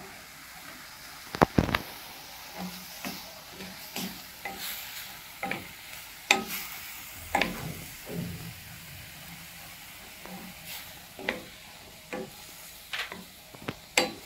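Minced chicken frying in oil in a pan, sizzling, while it is stirred with a utensil that scrapes and clicks against the pan every second or so. Two sharper knocks come about a second and a half in.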